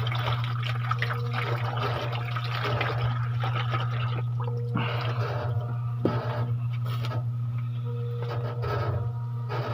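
Whole pig roasting on a spit over freshly stoked charcoal: a dense, steady crackle and hiss of fat sizzling on the coals, over a constant low hum.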